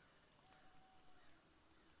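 Near silence: faint room tone, with a couple of faint held tones, one higher and then one lower.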